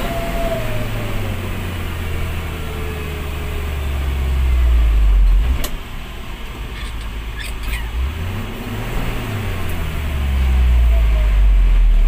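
Logging truck's engine heard from inside the cab while driving on a rough dirt road. It pulls harder and louder, drops away suddenly about halfway through, then rises in pitch and builds again toward the end, with a few clicks and rattles from the cab.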